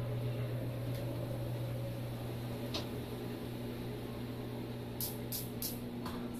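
Steady low mechanical hum, with a single click about three seconds in and a quick run of four or five light clicks near the end.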